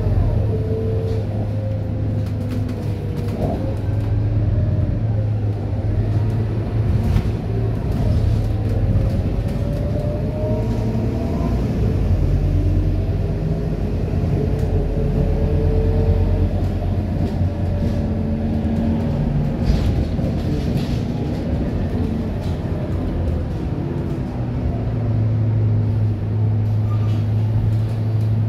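Scania K230UB single-deck bus heard from inside the cabin while riding: its rear-mounted diesel engine running with a low hum and a whine that rises and falls in pitch as the bus speeds up and slows, with a few short rattles. Near the end the sound settles to a steady hum.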